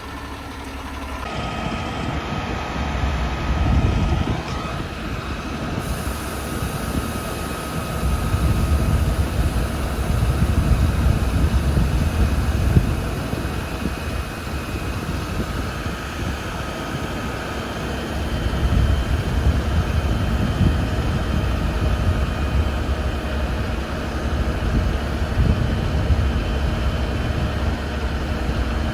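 Heavy diesel truck running, a low rumble that swells and eases several times.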